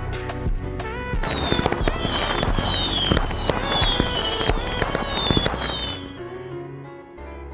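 Background music overlaid with a fireworks-like effect: dense crackling with a series of falling whistles, starting about a second in and fading at about six seconds, leaving softer music.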